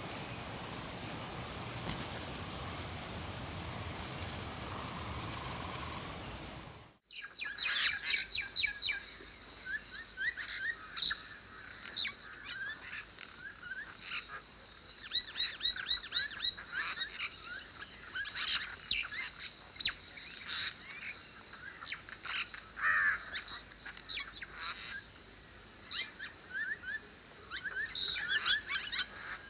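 A chorus of wild birds chirping and calling in many short, quick, high chirps and trills, starting after a sudden cut about seven seconds in. Before the cut there is a steady rushing noise with faint, regular high pulses.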